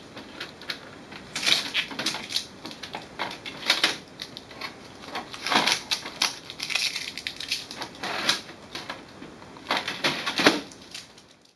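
Blue packing tape being peeled and pulled off the plastic input tray of an HP Envy Photo printer: irregular crackles and rustles with sharp plastic clicks and knocks. The loudest knock comes near the end.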